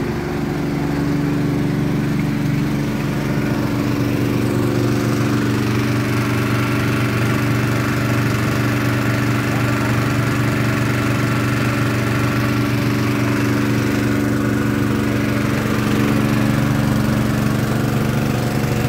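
Small petrol engine of a portable water pump running steadily, pumping floodwater out through its hose.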